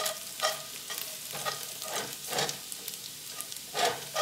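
Slotted metal spatula scraping and stirring minced garlic around a cast-iron skillet, about two strokes a second, over a light sizzle of the garlic sautéing in the pan juices.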